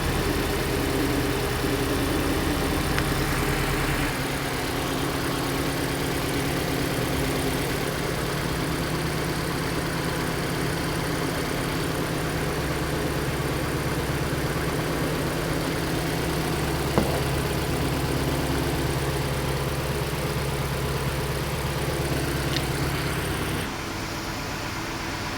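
Hyundai Elantra petrol engine idling roughly with a misfire on cylinder 3, caused by that cylinder's injector connector being unplugged. The engine runs steadily and gets slightly quieter near the end.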